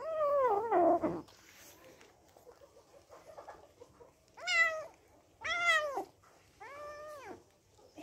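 Kitten meowing in angry protest at being picked up while eating: one long, falling meow right at the start, then three shorter meows about four to seven seconds in.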